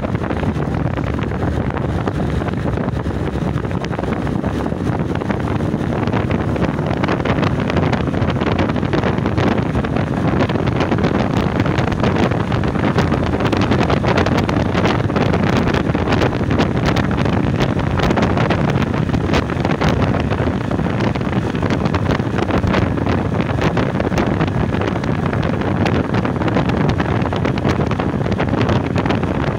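Steady rush of wind buffeting the microphone on a motorcycle at cruising speed, with the bike's engine and road noise running beneath it.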